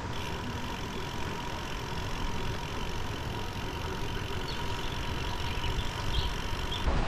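Bicycle tyres rolling over a gravel road: a steady low rumble and hiss.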